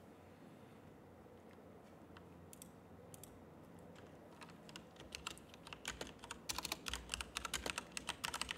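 Typing on a computer keyboard: a few scattered clicks at first, then fast, steady keystrokes from about five seconds in.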